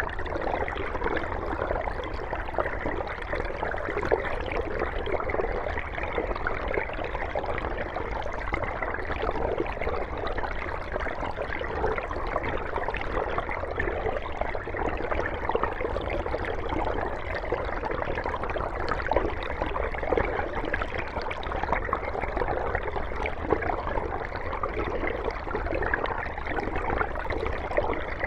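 Mountain stream flowing steadily, a constant even wash of water with small gurgles.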